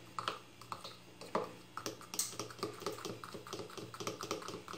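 A fork clinking and scraping against a ceramic bowl while condensed milk and lemon juice are stirred into a glaze. There are a few scattered taps at first, then from about two seconds in a quick, even run of light clinks, about six a second.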